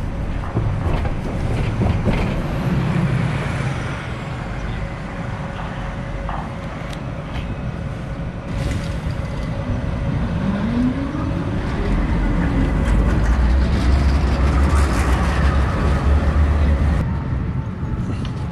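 Large engine running close by, a low rumble that grows louder about twelve seconds in and drops back near the end, with a rising whine about ten seconds in.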